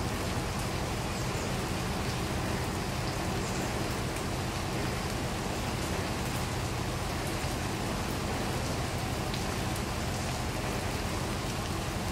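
Steady rain falling on wet paving and plants: an even hiss with scattered small drop ticks, over a low steady hum.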